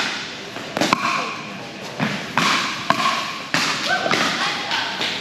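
Pickleball rally: paddles striking a hard plastic pickleball back and forth, five or six sharp pops at uneven intervals.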